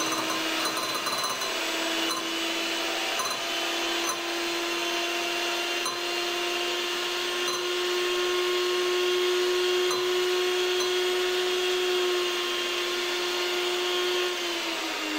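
Russell Hobbs electric hand mixer running on its slowest speed, its beaters whisking egg in a glass bowl: a steady motor hum that rises slightly in pitch about a second and a half in and drops just before the end.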